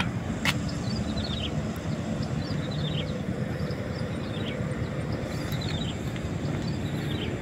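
Steady low outdoor rumble, with short high chirps repeating about once a second.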